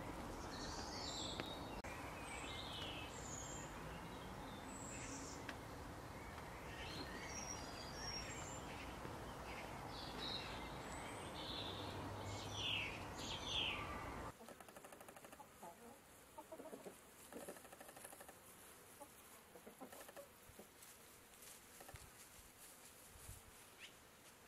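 Wild birds chirping in short scattered calls over a steady outdoor hiss. About fourteen seconds in it cuts to a quieter scene of faint, intermittent clucks and peeps from a hen and her chicks.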